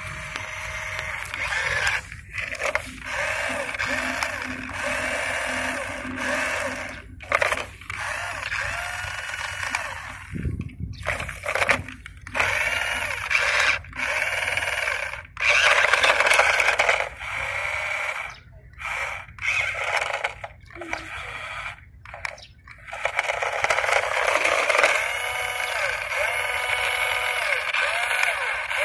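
Toy RC dump truck's built-in electronic sound effect playing through its small speaker: a thin, warbling tone that rises and falls about twice a second, in runs broken by short pauses.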